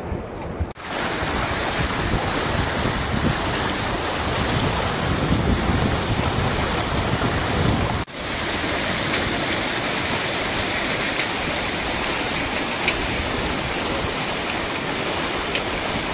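Steady rush of a mountain river flowing over stones, with wind buffeting the microphone. The sound drops out suddenly for a moment about a second in and again about halfway through.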